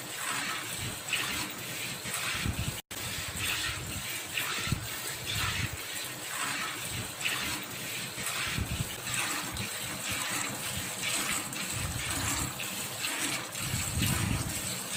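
Water buffalo being milked by hand: streams of milk squirting into a metal pail, in a steady rhythm of hissing squirts about one a second.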